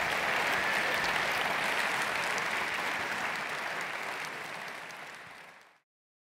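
Large audience applauding steadily. The applause fades out over the last two seconds and ends abruptly in silence.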